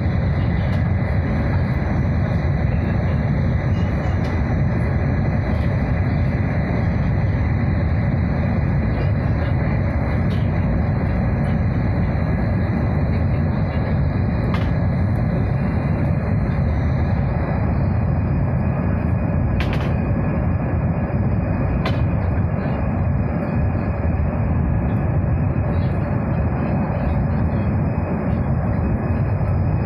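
Steady running noise inside the passenger car of a JR Kyushu 800 series Shinkansen: a constant low rumble of wheels, track and air, with a few faint ticks.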